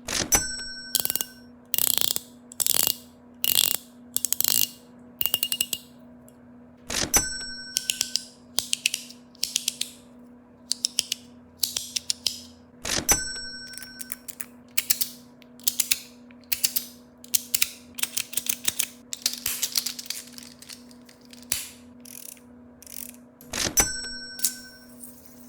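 Metal EDC fidget toys being worked by hand: rapid clusters of sharp mechanical clicks and ratcheting, over a steady low hum. A short ringing tone recurs four times, about every six seconds.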